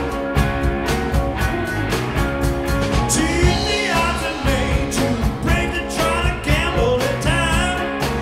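Live rock band playing, with electric guitars over a steady drum beat; a man starts singing about three seconds in.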